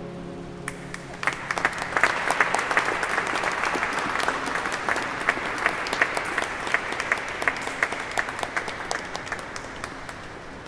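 The last held chord of a chamber music piece dies away, and a small audience breaks into applause about a second in. The clapping is thick at first and thins out toward the end.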